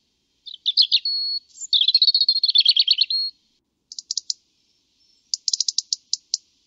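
European robin singing: high, thin warbled phrases with trills, separated by short pauses, and near the end runs of quick short notes.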